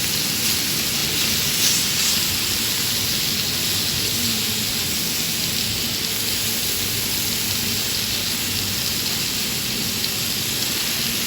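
Pork neck sizzling steadily on a hot grill, its fat and juices hissing.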